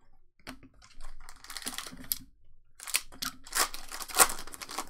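Pokémon trading cards being shuffled in the hands, then a foil booster pack wrapper crinkling and tearing open: a run of quick clicking rustles that grows loudest near the end.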